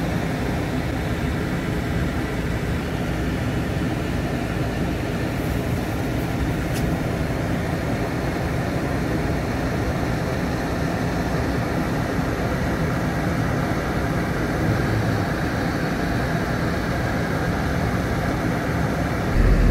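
Steady rumble and hiss of a vehicle's engine and running noise, heard from inside the car's cabin.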